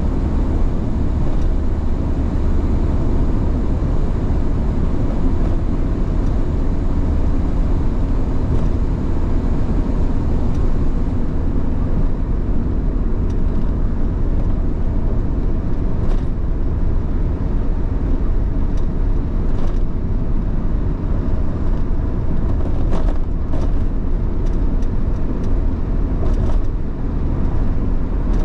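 Steady low rumble of a car driving along a road: tyre and engine noise, with a few faint ticks in the second half.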